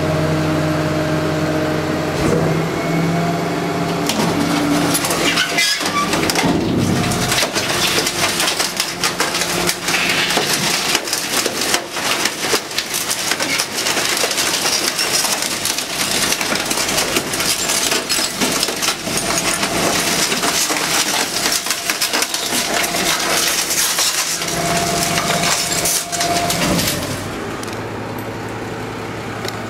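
Refuse truck's rear compactor crushing and breaking up debris: a long run of dense cracking and splintering over the truck's engine and hydraulics, with a pitched hydraulic whine at the start and again near the end. Near the end the crushing stops, leaving the engine running steadily.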